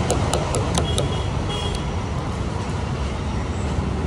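Steady low rumble of road traffic, with four light, sharp clicks in the first second as the shell of a boiled duck egg is tapped and cracked open.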